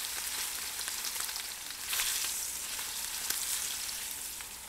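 Sous-vide-cooked chuck roast pieces searing in smoking-hot avocado oil in a cast-iron pan: a steady sizzle with scattered crackles and pops, swelling about two seconds in and easing off toward the end.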